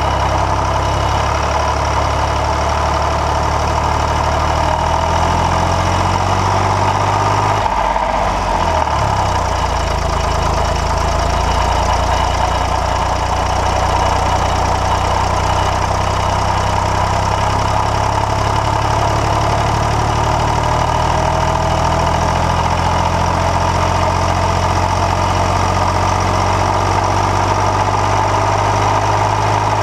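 Fendt tractor's diesel engine running steadily while the tractor drives, heard close up, with a brief change in the engine note about eight seconds in.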